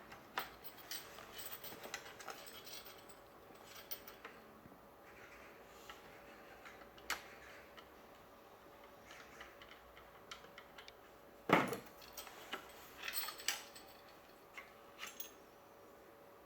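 Scattered light clicks and metallic clinks of small parts being handled while a spring-powered airsoft Mosin Nagant rifle is taken apart, with one sharper knock a little past the middle.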